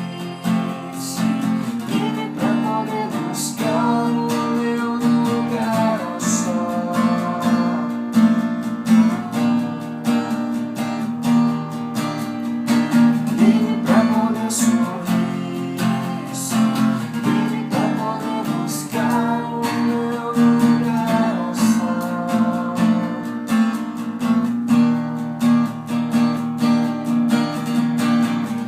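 Acoustic guitar strumming chords in a steady rhythm, playing a song.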